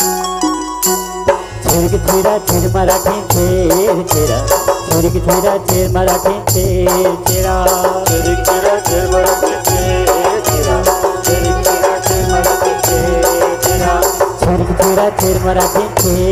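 Chhattisgarhi jas devotional folk music: a few held instrumental notes, then about a second in a fast, steady drum beat with rattling percussion comes in under a wavering melody.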